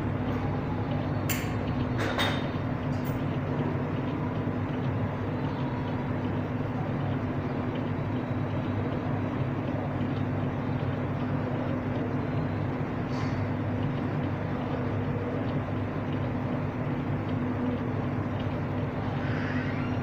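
Steady low hum of espresso-bar machinery with a constant tone, and a few sharp clicks and a knock in the first three seconds as the espresso machine's group head is worked.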